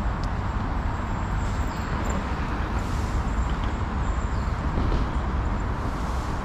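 Steady city ambience dominated by a deep, even rumble of vehicle noise.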